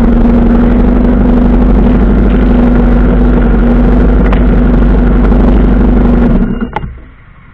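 1985 Suzuki GS 700 ES's four-cylinder engine idling steadily, close to the microphone, then switched off near the end and winding down, followed by a single click.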